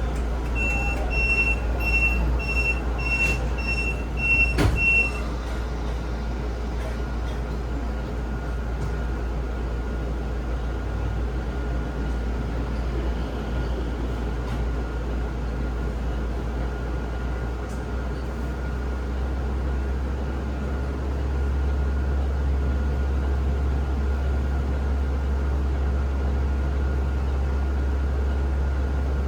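Inside a Zhongtong hybrid range-extender bus: a run of about seven short, high electronic beeps in the first five seconds, ending with a sharp knock, then the bus's drivetrain running with a steady low hum that grows slightly louder about two-thirds of the way through.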